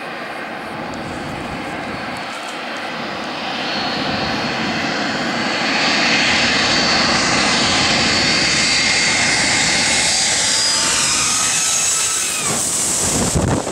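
Boeing 757 jetliner on final approach with gear down, its jet engines growing steadily louder as it closes in and passes low overhead. A whining tone falls in pitch as it goes over near the end, then the level drops away.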